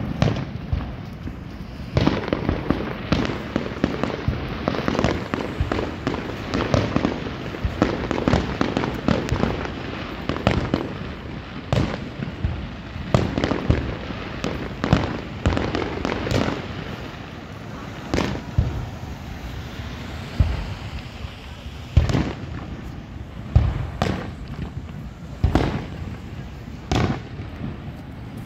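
Aerial fireworks display: a fast, overlapping run of shell bursts and bangs, thinning in the second half to separate booms every second or two.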